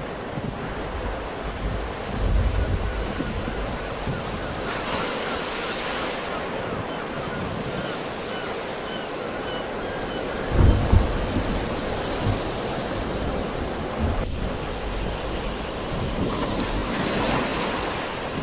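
Sea waves breaking and washing on the shore, swelling about five seconds in and again near the end. Wind buffets the microphone in low rumbles, briefly about two seconds in and again midway.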